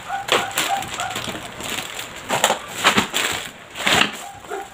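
Plastic food packets and a plastic shopping bag crinkling and rustling as they are handled, in irregular sharp crackles.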